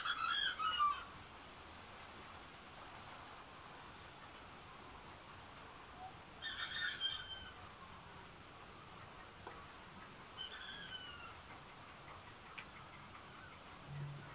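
Chickens calling in the background: a few short falling calls, near the start, about halfway through and again a few seconds later, over a faint, steady high chirping that repeats about four times a second.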